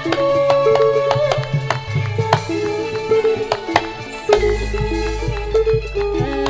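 Javanese langgam Sragenan played by a live band in an instrumental passage: a melodic lead line over drum strokes, with a deep bass note entering a little past the midpoint.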